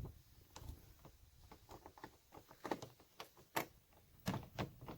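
Scattered light clicks and knocks of plastic body parts and tools being handled, a few a second with pauses between, the loudest about three and four seconds in.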